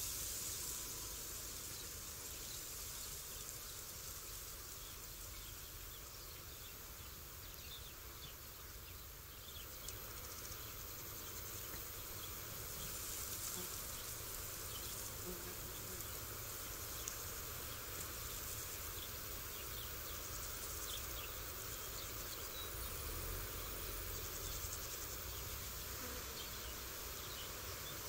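Faint field ambience of insects: a steady high-pitched insect hum with scattered short chirps over a low background rumble.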